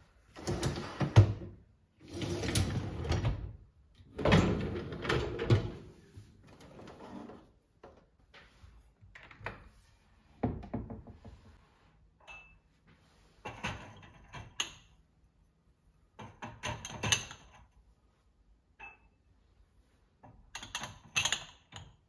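Dishwasher racks rattling as they are rolled out and back on their rails, three times in the first few seconds. Later come shorter clinks and knocks of drinking glasses being set into a wire under-shelf basket in a cabinet.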